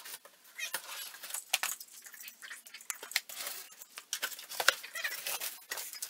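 Packing tape on a large cardboard box being slit with a blade and the cardboard flaps pulled open: a quick run of scrapes, crackles and cardboard rustling.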